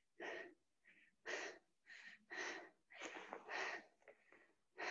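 Faint, hard breathing from exertion: a string of short, breathy puffs about once or twice a second.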